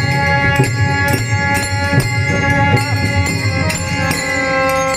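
Marathi bhajan accompaniment playing between sung lines: held steady sustained tones over a drum and jingling hand percussion keeping a regular beat.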